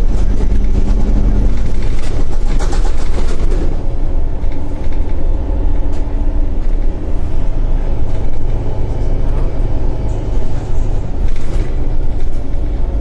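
MAN Lion's City NG313 articulated city bus running on its route, heard from inside the passenger cabin: a steady low engine and drivetrain rumble, with a held engine tone in the first second or so and brief bursts of higher-pitched noise around three seconds and eleven seconds in.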